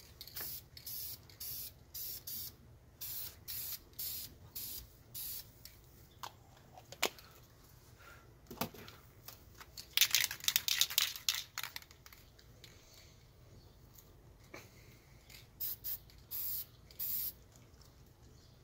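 Aerosol spray paint can hissing in short bursts, about ten quick sprays in the first five seconds, a longer spray about ten seconds in, then a few more short bursts near the end. A few light knocks fall between them.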